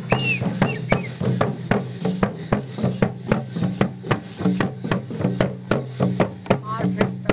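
Hand-beaten double-headed barrel drums (dhol) played in a steady walking rhythm, about three to four strokes a second.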